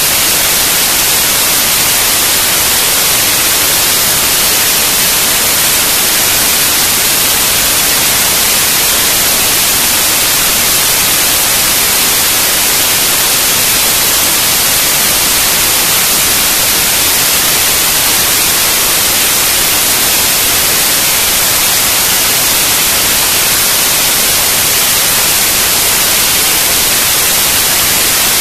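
Loud, steady static-like hiss, unchanging and brightest in the treble, with no rhythm or distinct events.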